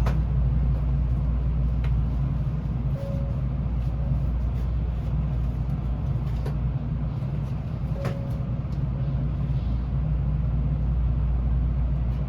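Steady low hum inside an N700A Shinkansen passenger car standing at the platform, with a few faint clicks and short faint beeps.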